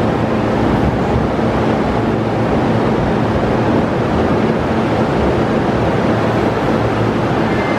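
E231 series 500 Chuo-Sobu local electric train running along the station platform: a loud, steady rumble.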